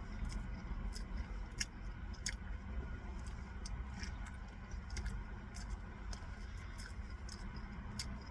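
Someone eating donuts close to the microphone: scattered small clicks and crackles of chewing and mouth noise over a steady low rumble.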